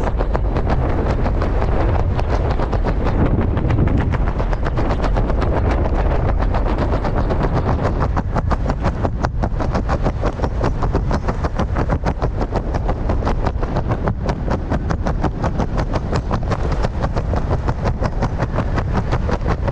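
Wind buffeting the helmet camera's microphone while descending under an open parachute: a steady low rumble with a rapid, even flutter of many pulses a second, densest in the second half.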